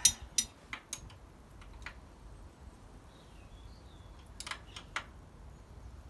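Metal clicks and clinks of a spanner on a motorcycle's rear axle lock nut as it is pinched up: several sharp clicks in the first two seconds, then a short cluster of clicks near the end.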